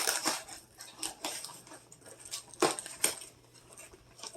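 Light knocks and clatter of packed items being handled: a few sharp taps and bumps as things are taken out of a box and set into a cooler, with soft rustling between them.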